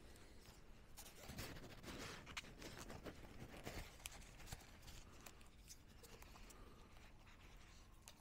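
Faint clicks and rustling of a DJI Mavic 3 drone being handled as its folding arms are swung open and its rain cover shifts.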